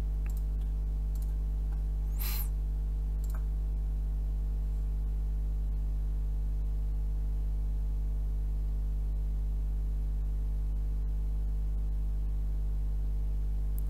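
Steady low electrical mains hum with a stack of overtones, picked up by the recording microphone, with a few faint mouse clicks in the first few seconds.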